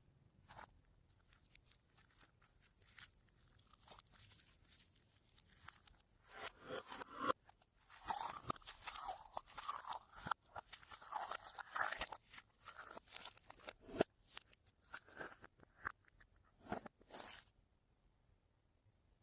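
Slime being kneaded and mixed by hand: irregular sticky clicks and crackles, densest and loudest in the middle, thinning out to scattered pops near the end.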